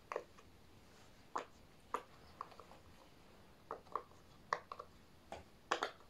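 Pineapple-shaped silicone pop-it fidget toy having its bubbles pressed one after another, giving a string of short, quiet pops at irregular spacing, about a dozen in all, bunching up in the second half.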